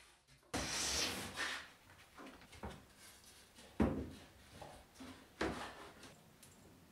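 Wooden boards and a plywood panel being handled on a workbench: a short scrape about half a second in, then a few scattered knocks and light handling noises.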